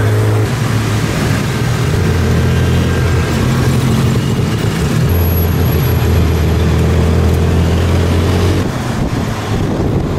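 Tuk-tuk engine running loud while the three-wheeler drives through traffic. Its note shifts a few times as it changes speed and eases off near the end, over road and traffic noise.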